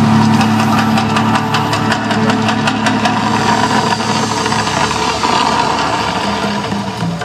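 The Mirage volcano eruption show: a loud, steady low rumble with rapid crackling pops over it as the flames burst from the artificial volcano, easing slightly near the end.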